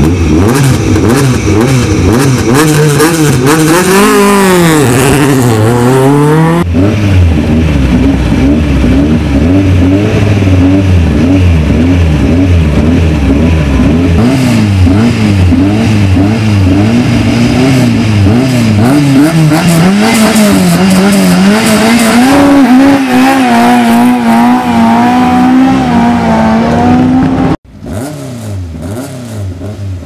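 Ford Escort Mk2 rally car engines revving hard at the start line, the revs bouncing up and down as they are held high before the launch, then climbing and holding higher. Near the end the sound cuts off suddenly and a quieter engine follows.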